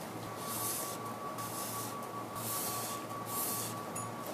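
Foam-tipped cleaning swabs rubbing across drawing paper to lift contaminants: four short hissing strokes, about a second apart.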